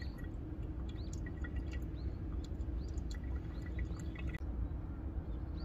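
Hot water poured in a thin, steady stream from a gooseneck kettle onto coffee grounds in a pour-over dripper, trickling and dripping into the server below.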